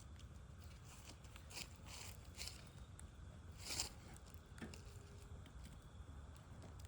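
Wood campfire burning quietly, with faint crackles and a few scattered sharp pops, the loudest a little under four seconds in, over a low steady rumble.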